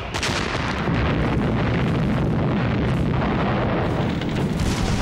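Artillery shelling: a sharp gun blast right at the start, then a continuous heavy rumble of explosions with a few more blasts further on.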